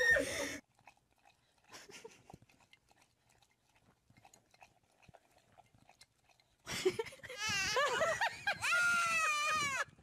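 Small dog howling and whining in drawn-out, wavering calls whose pitch rises and falls, beginning about two-thirds of the way in, after several seconds of faint clicking.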